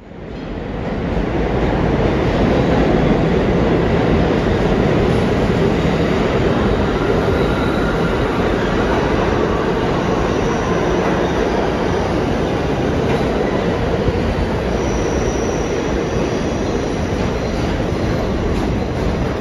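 New York City Subway R211T train pulling into an underground station: a loud, steady rumble of wheels on rails that builds in the first second, with brief high squeals about halfway through and again later as it slows along the platform.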